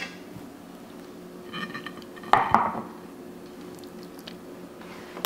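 Metal ladle and aluminium pot clinking: a short ringing clink about a second and a half in, then two sharp knocks as the pot and ladle are set down.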